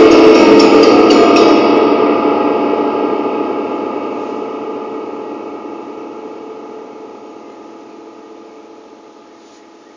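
A sustained piano chord of many ringing notes, part of an experimental electronic track, dying away slowly and evenly until it is faint near the end.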